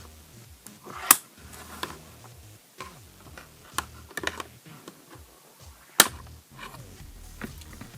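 Hands opening a toy package: scattered clicks and snaps of the packaging, the two loudest about a second in and about six seconds in.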